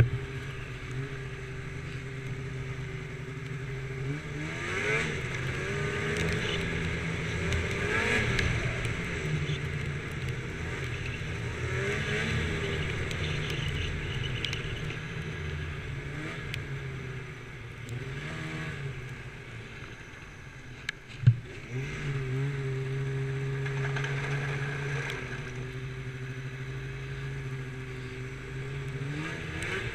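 Snowmobile engine heard from the rider's seat while riding, its pitch rising and falling several times as the throttle opens and eases. There is a single sharp knock about two-thirds of the way through.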